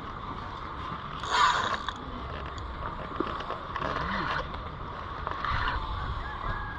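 Fishing reel working under load, a continuous mechanical clicking whir, with a brief louder burst about a second and a half in.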